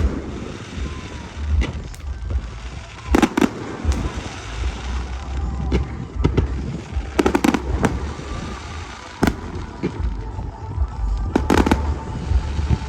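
Aerial fireworks going off: three big booms about four seconds apart, each trailing off in echo, with single sharper cracks between them over a steady low rumble.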